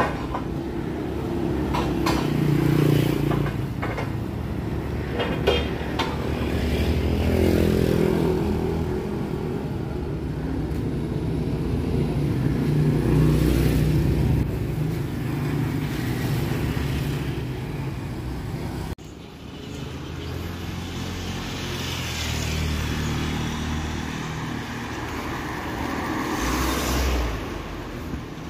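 Street traffic: motor vehicles passing close by one after another, engine noise swelling and fading several times, with a sudden break about two-thirds of the way through.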